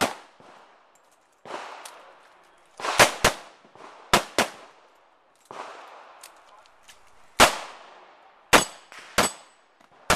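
Revolver shots, about seven, fired in quick pairs and singles with pauses between, each a sharp crack with a short echo. The last few shots are followed by a thin metallic ring from steel targets being hit.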